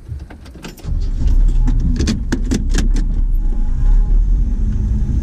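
Car engine rumble that comes up sharply about a second in and then holds steady, with a quick run of sharp clicks and rattles in the middle.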